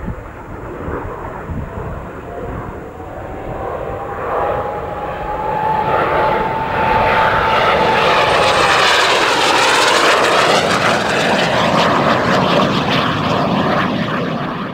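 Soko Galeb jet trainer's single Rolls-Royce Viper turbojet passing by in flight: the engine noise builds as it approaches, with a whine that rises slowly and then drops away about nine seconds in as the jet goes past.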